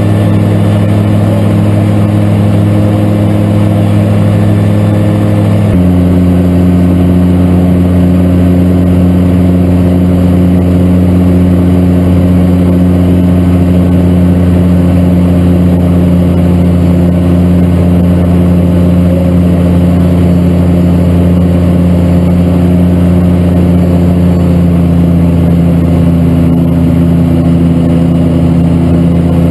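A light aircraft's engine and propeller droning loudly and evenly, heard inside the cockpit in flight. About six seconds in, the pitch of the drone steps abruptly to a new steady note.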